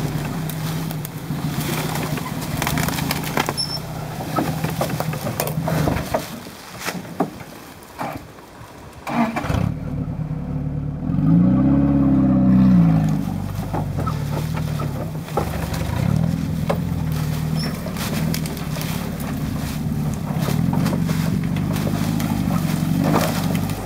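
1986 Toyota pickup's four-cylinder engine working the truck through brush, revving up and falling back about halfway through and swelling again more lightly later. Short cracks and scrapes of twigs and branches against the truck are heard throughout.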